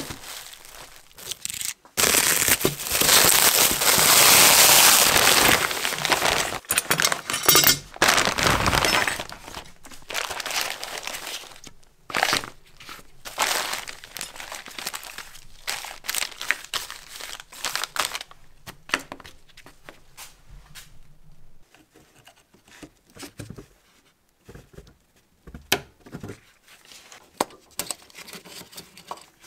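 Plastic wrap and clear plastic bags crinkling and rustling as wrapped parts are handled and unwrapped, loudest for several seconds near the start. After that, lighter crinkling with scattered clicks and taps.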